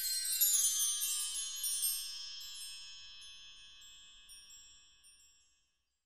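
A cascade of bright chiming tones sweeping downward, then ringing on and fading away over about five seconds.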